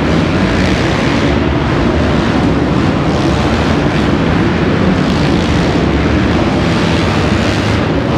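A pack of motocross bikes racing around an indoor dirt track, their engines blending into one loud, steady drone inside the large arena hall.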